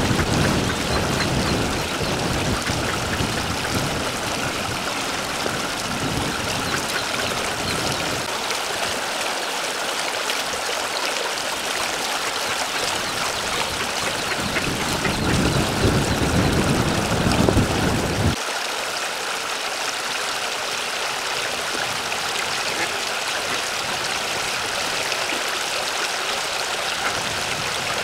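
Steady rush of running water trickling and gurgling into the pond. A low rumble sits under it at the start and again for a few seconds past the middle, ending abruptly.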